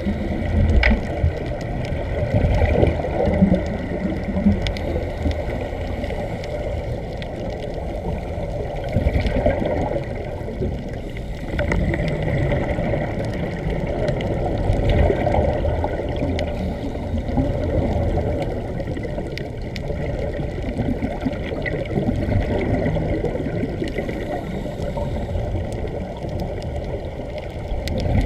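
Muffled underwater rumble and gurgling of air bubbles streaming from hose-fed Sea Trek diving helmets, heard through an underwater camera housing: a steady, churning low noise with occasional faint clicks.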